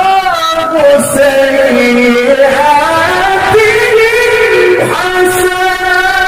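A man's voice in Qur'an recitation (tilawah), drawing out long, ornamented held notes that glide slowly up and down in pitch.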